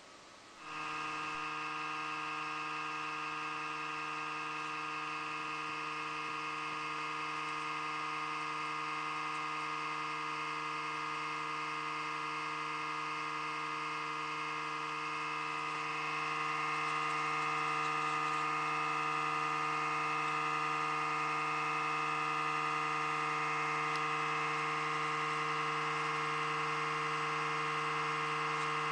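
Power supply unit giving off an abnormal electrical buzz with a high whine. It starts about a second in and grows louder about halfway through. This is a noise that appears in cold weather, which the owner suspects is a sign of the supply's deterioration.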